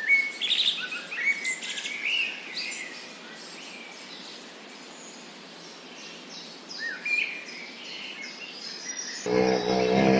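Small birds chirping in short, high calls that glide up and down, busiest in the first few seconds and again later, over a steady background hiss. Near the end an abrupt cut brings in a lower, pitched animal sound.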